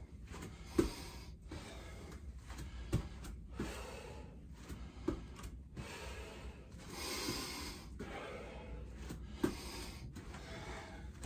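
A man breathing hard from exertion, gasping in and out about once a second, with a longer, heavier breath a little past the middle. A few sharp knocks fall among the breaths, the loudest about a second in.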